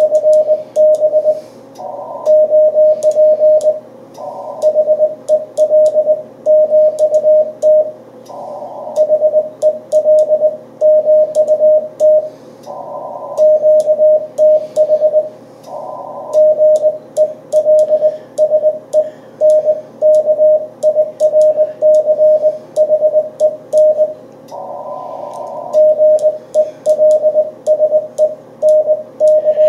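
Morse code (CW) from an amateur radio transceiver: a steady mid-pitched tone keyed on and off in dots and dashes, with band noise hissing in some of the pauses between characters and faint clicks.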